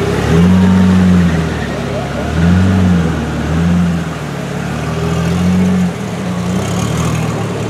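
Pagani Zonda F Roadster's 7.3-litre Mercedes-AMG V12 pulling away at low speed, its note swelling and dropping four times as the throttle is blipped.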